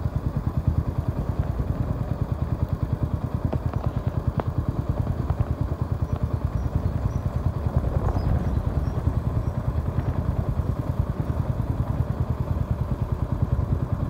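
Motorcycle engine running steadily while riding, a low, even pulsing.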